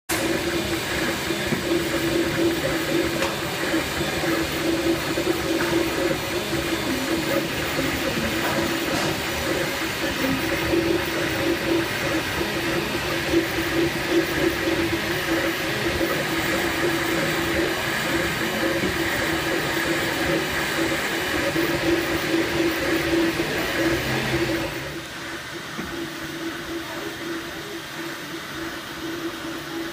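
Filament 3D printer running mid-print: the print head's stepper motors hold a steady humming tone that swells and fades as the head moves, under the even hiss of the cooling fans. The whole sound drops a step quieter about 25 seconds in.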